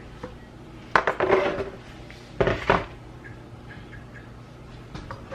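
Kitchen clatter of a pan and cooking utensils: one sharp knock about a second in and two more close together a second and a half later.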